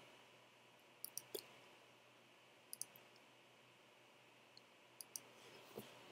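Faint computer mouse clicks, single and in quick pairs, scattered a second or two apart over near-silent room tone.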